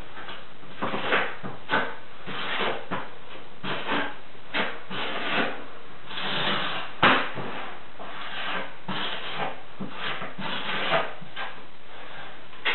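Irregular scraping and rubbing strokes as thick sanded-grout mortar is spread onto the back of a thin glass tile stick (back-buttering), with one sharp tap about seven seconds in.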